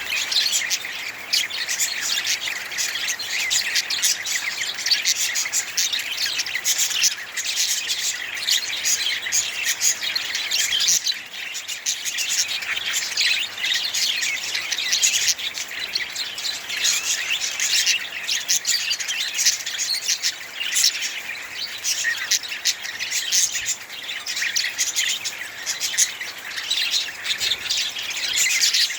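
Budgerigars chirping and chattering, a dense unbroken stream of short high chirps.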